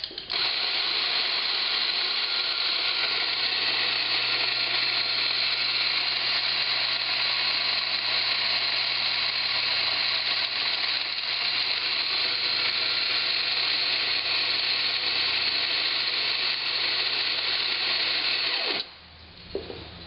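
Rancilio Rocky flat-burr coffee grinder running steadily, grinding espresso beans into a portafilter at a grind set a couple of notches finer; the motor stops abruptly near the end.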